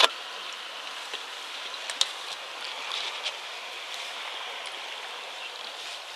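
Steady soft hiss of shallow seawater washing and trickling among shoreline boulders, with a couple of small sharp clicks, one about two seconds in.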